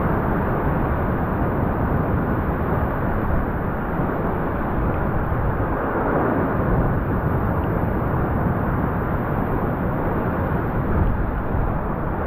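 Ocean surf breaking and washing over a rock ledge, a steady rush of water mixed with wind rumbling on the microphone.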